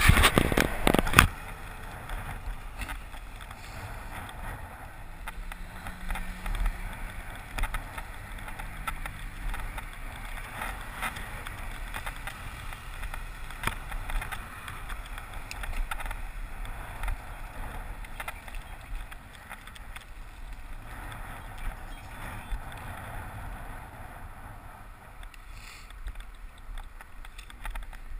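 Riding a bicycle on a tarmac road, heard from a camera on the bike: a steady rumble of tyres and wind on the microphone, with scattered small rattles and clicks. A few loud knocks in the first second as the camera is handled.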